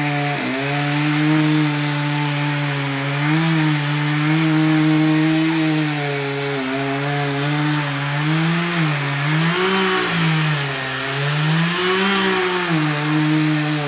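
Chainsaw running as it cuts a notch into the trunk of a large southern pine. Its engine pitch dips and rises again and again as it works through the wood.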